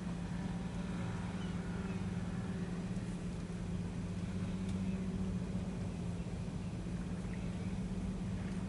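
Steady low mechanical hum at one constant pitch, like a motor or engine running without change.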